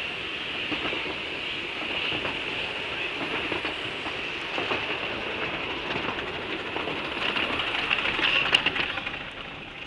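Passenger carriages of a narrow-gauge steam train rolling past on snowy track, wheels clicking over the rail joints. The loudest clicks come about eight and a half seconds in as the last carriage goes by, and the sound then falls away as the train moves off.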